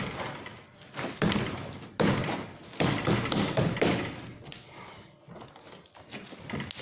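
Hands kneading and pressing a large mass of slime to bury small toys in it, giving irregular soft thuds, taps and squelches, busier in the first few seconds and quieter later.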